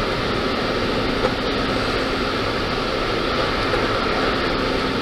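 Steady road and engine noise heard from inside a car's cabin while driving, an even hiss with a faint low hum.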